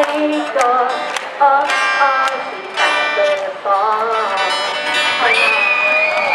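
Music: a song with quick plucked-string notes.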